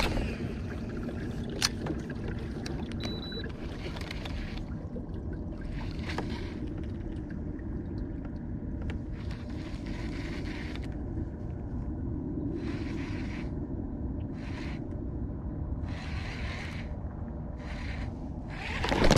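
Baitcasting reel cranked in short bursts with pauses between them, each burst a brief whirring hiss, over a steady low rumble. One sharp click comes about a second and a half in.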